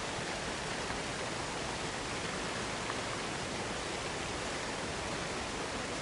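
Waterfall sound effect: a steady, even rush of falling water, with no change or break.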